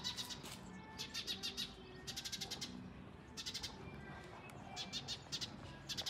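A bird calling in short rapid chattering bursts, each about half a second of fast clicks, repeated roughly once a second, five or six times.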